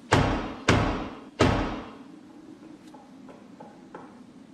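Three loud knocks on a heavy wooden door, about two-thirds of a second apart, each trailing off in an echo.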